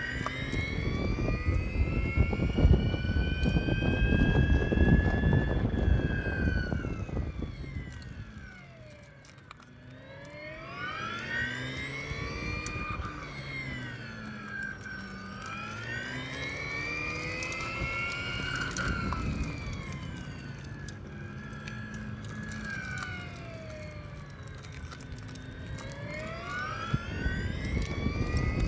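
Piaggio Vespa Elettrica electric scooter's motor whining, its pitch gliding up as it speeds up and down as it slows, several times over, nearly fading out once about nine seconds in. A low rumble rises under the whine when it is going faster.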